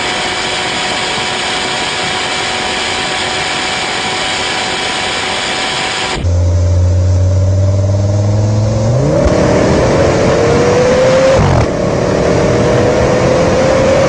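A steady mechanical whine holding fixed tones gives way abruptly, about six seconds in, to a high-performance car engine. The engine holds a low steady note, then revs hard with its pitch climbing steeply. It dips briefly at an upshift about eleven and a half seconds in, then climbs again under acceleration.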